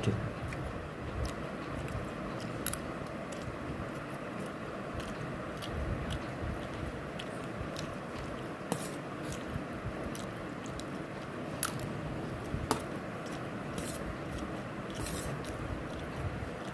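A person chewing a mouthful of soft vermicelli noodles close to the microphone, with scattered light clicks and scrapes of a steel fork against the bowl.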